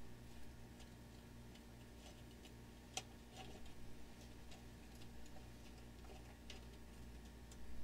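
Faint, irregularly spaced light clicks, one sharper than the rest about three seconds in, over a steady low electrical hum.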